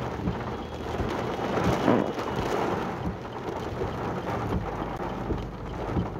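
Heavy rain falling on a car's roof and windshield, heard from inside the cabin as a steady hiss that briefly grows louder about two seconds in.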